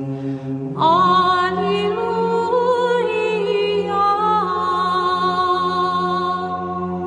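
Unaccompanied Serbian Orthodox chant: voices sing a slow melody over a held drone note, with a new, higher phrase entering about a second in.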